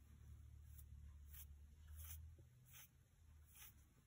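Faint swishes of a bristle paintbrush stroking varnish onto a wind vane blade, about five strokes. A faint low hum runs underneath and fades out near the end.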